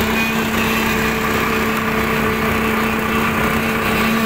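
Concrete poker vibrator running steadily, its flexible shaft immersed in fresh concrete, giving a constant machine hum with an even pitch, compacting the pour.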